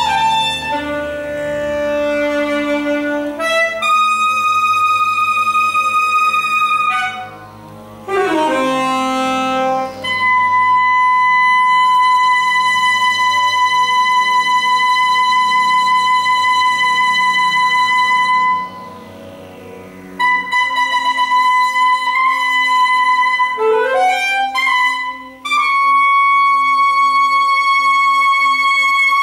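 Solo saxophone playing a slow passage: separate notes with quick upward runs, and a long held high note of about eight seconds in the middle, each note ringing on in the hall.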